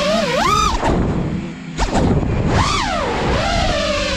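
FPV racing drone's brushless motors whining, the pitch swooping up and down sharply with the throttle. The whine drops away briefly about a second and a half in as the throttle is chopped, then rises again.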